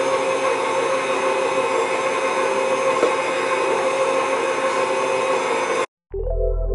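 Electric stand mixer running steadily with a motor whine as it beats soft cookie dough while flour is added. It cuts off abruptly about six seconds in, and background music starts just before the end.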